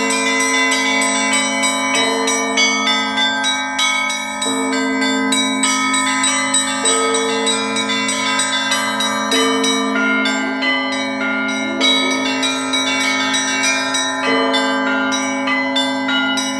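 A peal of several bells ringing without pause, strokes following one another several times a second over long, lingering tones.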